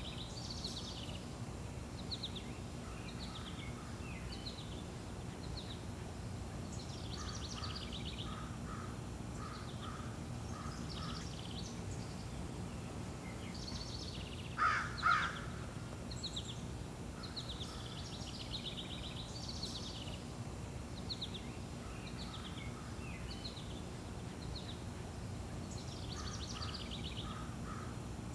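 Birds calling: a run of short, high chirps and trills throughout, with two louder, lower calls in quick succession about halfway through, over a steady low background hum.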